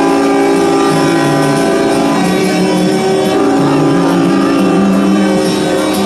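Many truck air horns blaring together in one loud, steady chord of several tones, with a few of the pitches shifting as individual horns come and go.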